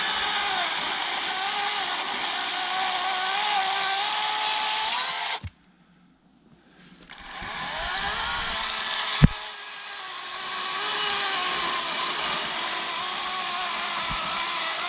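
Harbor Freight LYNXX 40-volt cordless chainsaw running and cutting wood, its electric motor whine wavering in pitch under load. It stops about five seconds in, then spins back up a couple of seconds later with a rising whine. There is a sharp knock about nine seconds in, and it keeps cutting to the end. The battery is starting to get a little weak.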